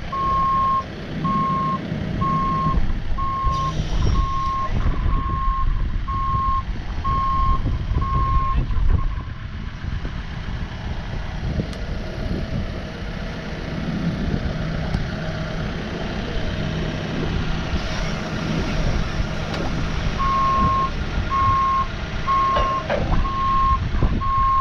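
Case rough-terrain forklift manoeuvring, its engine running under a reverse alarm that beeps about once a second while it backs up. The beeping stops after about nine seconds and starts again near the end.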